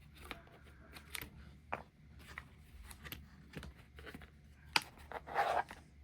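Scattered small metallic clicks and clinks from handling a just-picked Yale euro cylinder lock and its tools, with a sharper click just before five seconds in followed by a short rustling scrape.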